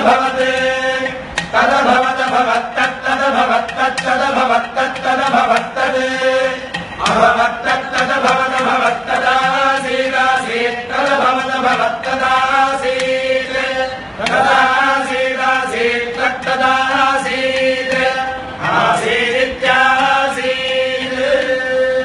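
A group of male voices chanting Vedic verses in unison on a steady pitch, in the repeating ghana pattern of recitation, accompanied by ghatam (clay pot drum) strokes.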